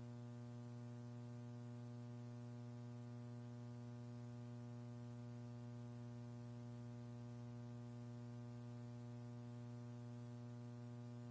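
Steady electrical hum with a ladder of even overtones and a little hiss, unchanging throughout. There is no rocket noise.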